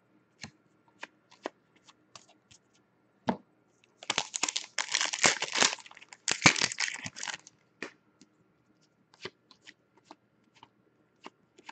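Trading cards being handled on a glass tabletop: scattered light taps and clicks as cards are set down. From about four seconds in come some three seconds of dense rustling and crinkling as the next foil pack is opened and its cards are flipped through.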